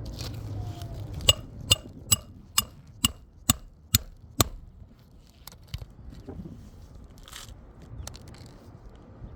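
Hammer driving a roofing nail into an asphalt shingle: eight sharp, ringing strikes at about two a second, then a few light taps.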